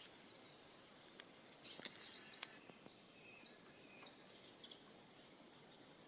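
Near silence: faint outdoor ambience, with a few soft clicks in the first half and a few faint, short, high chirps a little past the middle.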